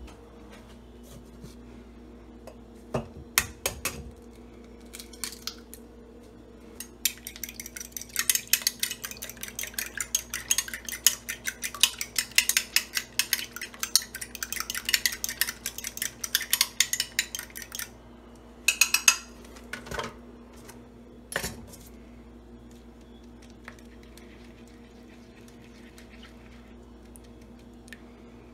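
A metal fork beating an egg for an egg wash in a glass measuring cup: fast, dense clinking of metal on glass for about ten seconds, with a few scattered clinks before and after. A steady low hum runs underneath.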